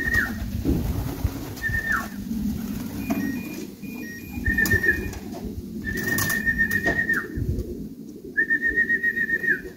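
A person whistling to call returning racing pigeons down to the loft: about five whistles at one high pitch, each held and then dropping quickly at its end, the longer ones warbling. Pigeons coo low underneath.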